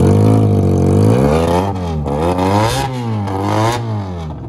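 Benelli TNT 300 parallel-twin motorcycle engine revved through a loud aftermarket exhaust with two silencers. The pitch rises and falls several times as the throttle is blipped, then drops away near the end.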